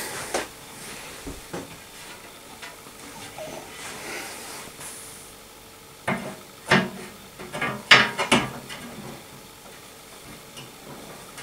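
Heavy glass side panel being handled and fitted onto a metal PC case: a few scattered knocks, then a cluster of clinks and bumps about six to eight and a half seconds in, the loudest near eight seconds.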